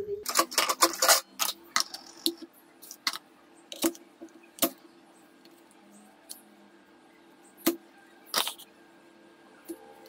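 Kitchen knife cutting through an apple and knocking on a hard stone countertop: a quick flurry of sharp clicks in the first second, then single knocks about a second apart, fewer after the middle. A faint steady hum lies underneath.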